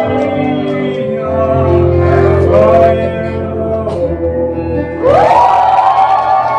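Men's voices singing a Korean praise song over instrumental accompaniment with sustained low bass notes. The voices swell into a louder held phrase about five seconds in.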